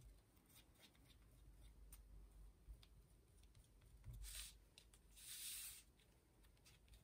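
Very faint rubbing of a crepe-rubber glue eraser over cardstock, lifting off excess glue, with two short scratchy rubs about four and five seconds in.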